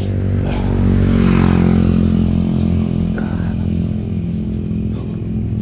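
A motor engine running with a steady drone, growing louder about a second in and easing off again.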